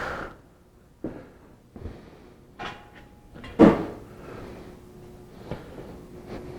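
Scattered clicks and knocks of portable platform scaffold parts being handled and fitted together, with one louder clunk about three and a half seconds in.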